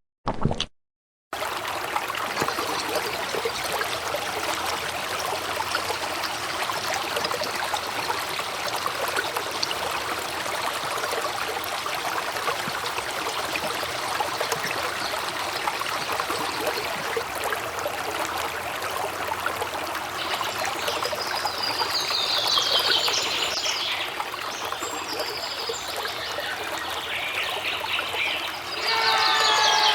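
A couple of sharp clicks, then a steady trickle of running water. A few bird chirps come in about twenty seconds in and again near the end.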